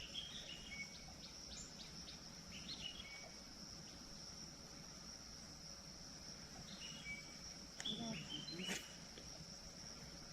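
Steady, high-pitched drone of insects with short bird chirps scattered through, and a single sharp click a little before the end.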